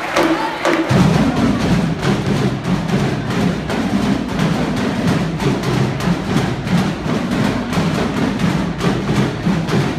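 High school marching drum line coming in about a second in with a loud, dense drum cadence of rapid, evenly repeating strokes on snare, tenor and bass drums, over the tail of crowd cheering.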